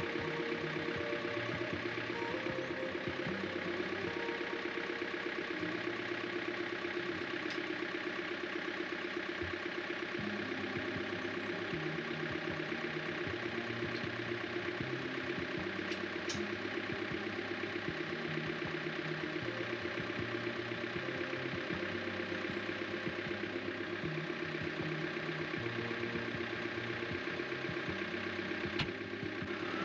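Diesel engine of a compact cab tractor with a front loader idling steadily. A single sharp click sounds about a second before the end.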